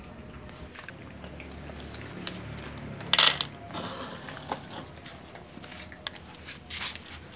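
Cats crunching dry kibble, a run of short crackly chewing sounds. A loud, brief scuffing noise comes about three seconds in.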